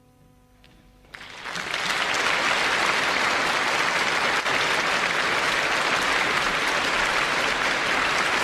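The last chord of a grand piano fades out, and about a second in a concert audience breaks into applause that becomes dense and steady.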